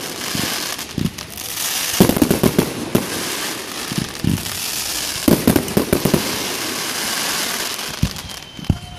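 Aerial fireworks display: a dense, continuous crackle from glittering stars, broken by clusters of sharp bangs from shells bursting, about once a second and in quick runs of several. The crackle dies away just before the end.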